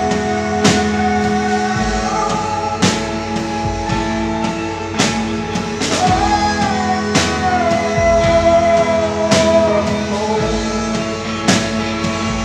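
A live rock band playing a slow song. A woman sings long held notes that glide slowly in pitch over Fender electric guitars, with a drum hit about every two seconds.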